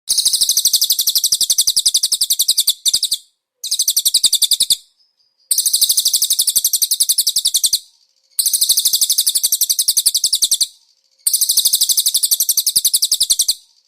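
White-eye (pleci) singing a cililin-style song: fast, high trills of rapidly repeated notes in five runs of one to three seconds each, with short silent breaks between them. Each run starts abruptly.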